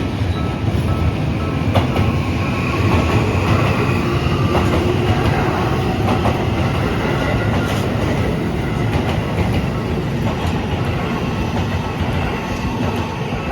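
Toei 5500 series electric train running through a level crossing: a steady rumble of wheels on rail with occasional clacks, dying away near the end as the last cars clear. Under it the Japanese crossing's warning bell keeps sounding its repeated tone.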